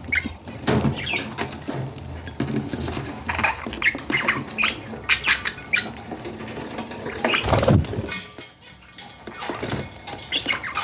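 Budgies making short, repeated chirps and squeaks, mixed with small taps and scuffling. There is one louder sound about seven and a half seconds in.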